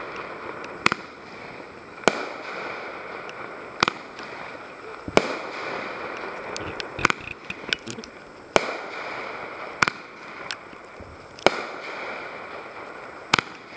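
Fireworks going off: a series of sharp bangs about every second and a half, over a steady hissing crackle between them.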